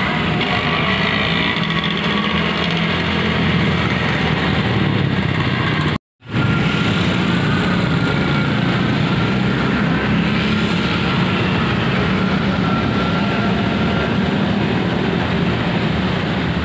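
Town street traffic, with motorbike and car engines running and passing on a wet road. The sound is steady except for a brief cut to silence about six seconds in.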